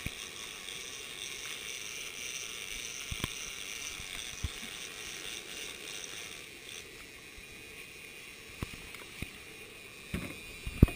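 Big-game fishing reel being cranked against a hooked tuna, its gears whirring and clicking steadily, thinning out about two-thirds through. A couple of sharp thumps near the end.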